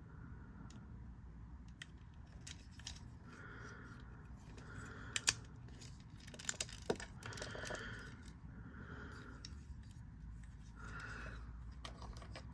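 Plastic parts of a Transformers action figure being handled and moved through its transformation, with soft rubbing and a few sharp clicks as joints and pieces snap into place, the loudest pair about midway.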